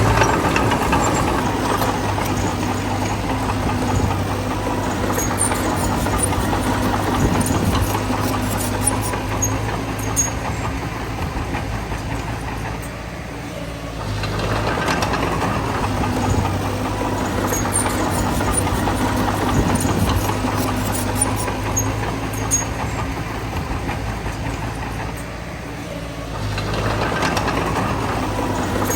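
Heavy diesel engine of a bulldozer running under steady load. The engine note eases off twice, about halfway through and near the end, then picks up again.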